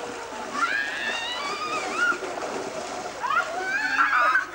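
Children shrieking and shouting with high, sliding cries while water splashes and sloshes in a pool, the cries starting about half a second in and growing louder near the end.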